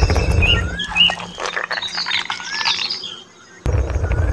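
Small birds chirping, short rising-and-falling calls repeated several times, with light scratchy ticking in the middle. Under them runs a low rumble that fades out about a second in and returns abruptly near the end.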